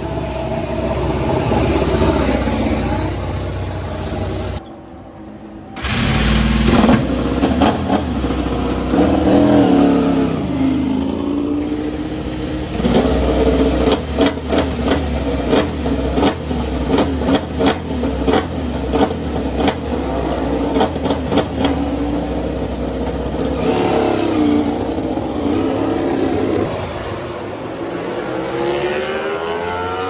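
Ducati Desmosedici MotoGP V4 race engine running in the pit lane, revved up and down with a run of short, sharp throttle blips about twice a second. Near the end its pitch rises as the bike pulls away.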